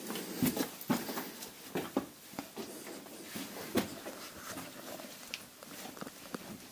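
Scattered light clicks and knocks at uneven intervals inside a cave, with faint scuffing in between.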